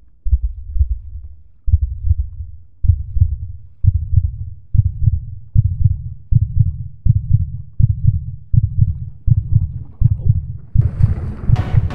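Heartbeat sound effect: deep, dull thumps that speed up from well over a second apart to about three every two seconds and grow louder, building suspense. About a second before the end, music comes in over it.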